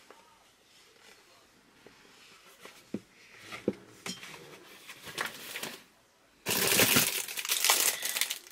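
Crinkly packaging being handled: light taps and rustles at first, then loud crinkling for nearly two seconds from about six and a half seconds in.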